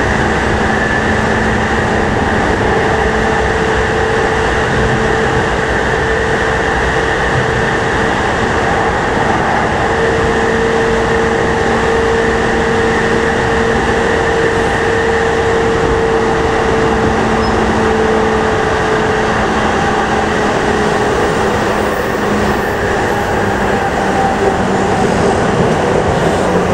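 JR E233 series 5000 commuter train running through a tunnel, heard from inside the car: a loud, steady rumble of wheels on rail with a steady humming tone over it that fades out about three quarters of the way through.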